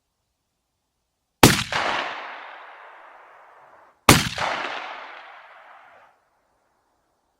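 Two shotgun shots from a Beydora BDR-90, about two and a half seconds apart. Each is followed by a long echo that fades over about two seconds.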